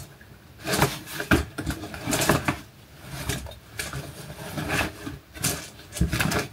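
Rustling of a plastic bag and objects being shifted and knocked about in a fabric storage box, a string of irregular short rustles and light knocks.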